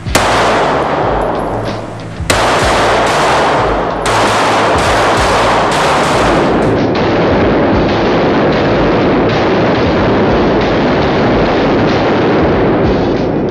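Glock 17 in a RONI carbine conversion kit firing 9 mm rounds, echoing heavily off concrete walls. A single shot comes first, then another about two seconds later, then a fast string of shots.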